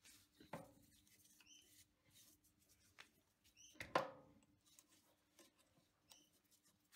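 Faint handling clicks and taps of metal as a drill bit is taken out of a lathe's tailstock drill chuck and a 6 mm stainless steel rod is fitted, with one sharper click about four seconds in. A faint steady hum and a few short, high, upward chirps sound in the background.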